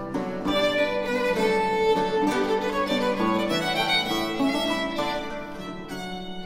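Baroque violin playing a bowed melody over plucked theorbo accompaniment, in an early-17th-century Italian violin sonata.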